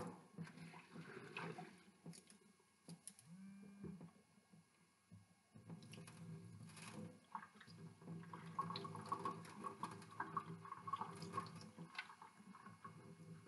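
Faint sloshing and dripping of water as hands swirl and rub rice grains in a rice cooker pot, washing the starch off the rice.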